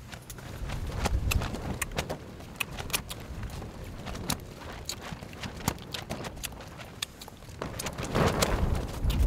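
Irregular clicks and knocks of camp cooking at a pot with beef in it, several a second, with a louder low rustling rumble about a second in and again near the end.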